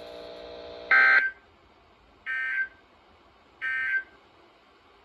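A steady hum stops about a second in. Three short bursts of Emergency Alert System digital data tones follow, the shrill, warbling SAME end-of-message code, each a fraction of a second long and spaced about a second and a half apart, the first the loudest. They mark the end of the alert.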